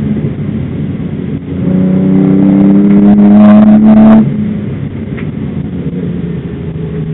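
BMW 323i's straight-six engine heard from inside the cabin, running hard. It gets much louder from about a second and a half in and holds there, then drops off abruptly about four seconds in to a quieter, lower running note, as when the throttle is closed.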